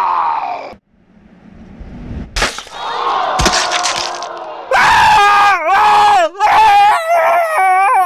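Comic crash-and-scream sound effects: a rising rush of noise, two sharp crashing impacts, then a voice screaming in long loud wails whose pitch dips sharply several times.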